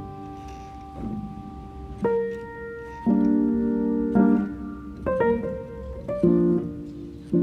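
Background piano music: slow chords struck about once a second, each ringing on and fading.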